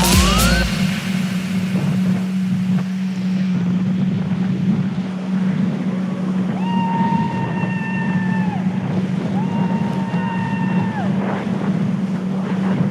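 Jet ski engine running steadily on the water, with wind buffeting the microphone. Twice in the second half a held high-pitched tone, about two seconds long, rises above the engine.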